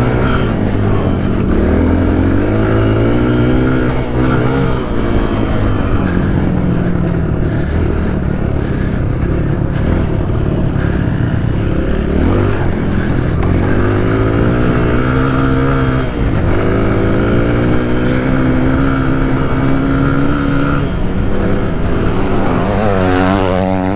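Motorcycle engine running under way, its pitch rising as it revs up and dropping as the rider eases off, several times over.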